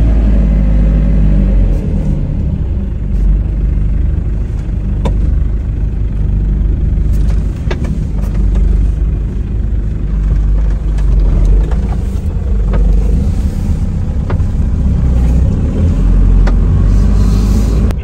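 Off-road 4x4's engine running steadily at low speed with a low rumble, crawling across a washout in the road, with a few short knocks scattered through.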